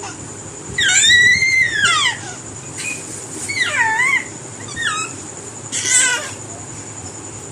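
Parrot giving a series of four high, squeaky calls that glide up and down in pitch; the first is the longest and the last is harsher and buzzier.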